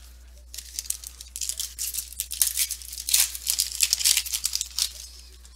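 Foil wrapper of a Topps Fire football card pack being torn open and crumpled by hand: a dense run of crinkling and crackling from about half a second in until near the end.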